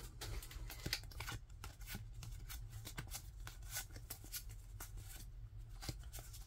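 Freshly opened Pokémon trading cards being flipped through by hand, each card sliding off the stack with a faint papery flick, in irregular succession over a low steady hum.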